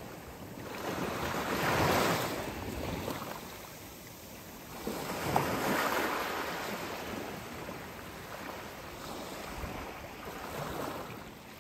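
Small waves breaking and washing up a sandy beach, the surf swelling about two seconds in and again about six seconds in.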